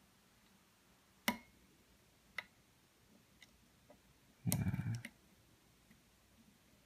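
Sparse sharp clicks of a lock pick and tension wrench working the pins of an American Lock 700 series padlock's five-pin core: a crisp click about a second in, another a second later, a few faint ticks, then a short louder clatter of handling past the middle.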